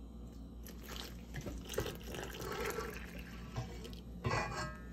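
Water poured from a mug into a well of flour in a stainless steel mixing bowl, a faint, fairly steady trickle.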